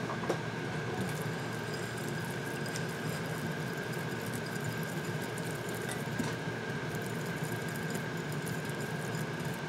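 A whisk stirring a little olive oil with spices in a glass bowl: soft, steady liquid swishing. A thin, steady high hum sits underneath.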